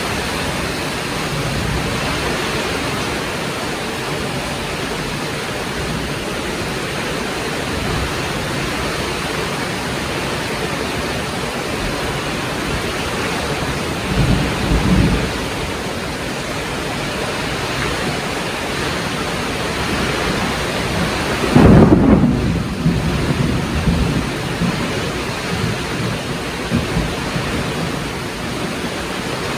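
Heavy rain falling steadily, with a short low rumble of thunder about halfway through and a louder thunderclap about three quarters of the way in that rolls on for several seconds.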